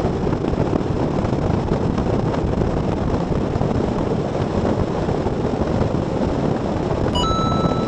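A Falcon bass boat running at speed, with a steady rush of wind on the microphone over the water and engine noise. A thin steady tone comes in near the end.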